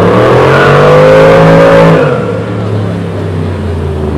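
Ford Mustang's engine accelerating hard through a cone course, its pitch rising for about a second and a half. About two seconds in the throttle comes off, and the engine falls back to a lower, quieter run.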